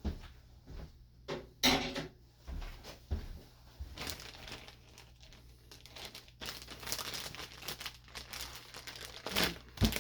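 Plastic zip-top freezer bag crinkling as it is handled, in irregular rustles with a few sharper, louder crackles.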